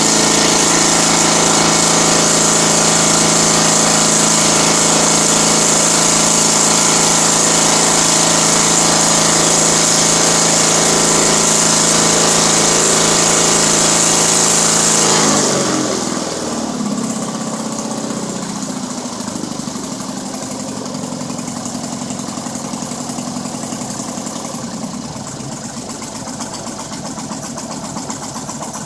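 Ragwing Stork ultralight's propeller engine running fast and steady, then throttled back about halfway through, its pitch falling as it slows to a lower, steady idle.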